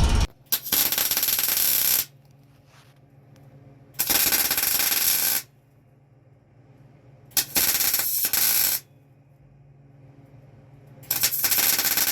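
MIG welder laying four short tack welds, each a crackling burst of about a second and a half, roughly three seconds apart, tacking steel bracing back onto a fuel truck's tank. A steady low hum runs underneath.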